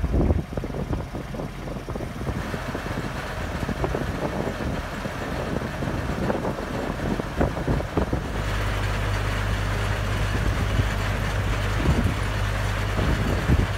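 Kubota DC-1A combine harvester's three-cylinder diesel engine running with a steady low hum and some knocking. About eight seconds in it grows louder and steadier, with more hiss.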